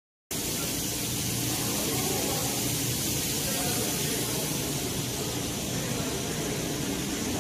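Steady noise of factory production-line machinery: an even hiss with a low hum underneath, cutting in suddenly just after the start.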